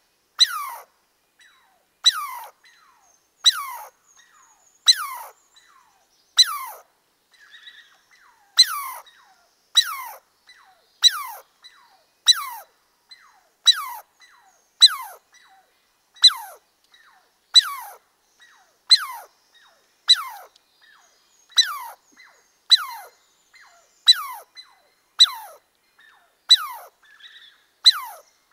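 An animal call repeated steadily, roughly every second and a quarter, each call a sharp note that drops quickly from high to low pitch and fades. There is one longer pause about seven seconds in.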